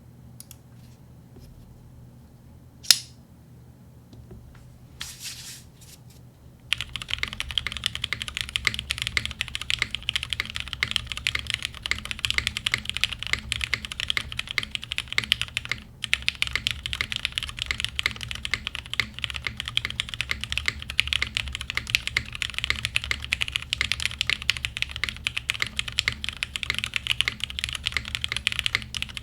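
Typing on a Frog TKL mechanical keyboard with an aluminium plate, lubed polished Cherry Black linear switches and GMK keycaps. After one sharp click early on, fast continuous typing starts about a quarter of the way in and runs on, with a brief pause near the middle.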